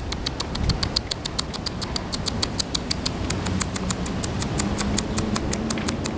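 Rapid, even clicking chatter of the kind squirrels make, about seven sharp clicks a second.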